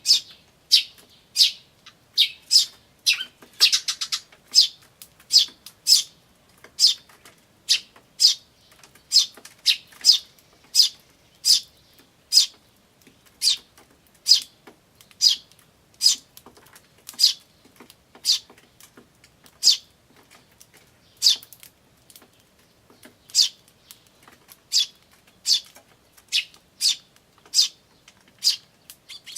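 Eurasian tree sparrows chirping: short, high chirps repeated about once or twice a second, with a quick run of chattering notes about three seconds in.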